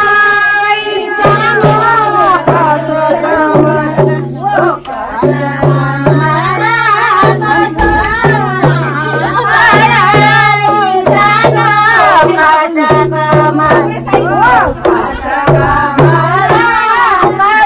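Kumaoni Holi folk song: singing with a steady low drone underneath and a hand drum keeping a regular beat.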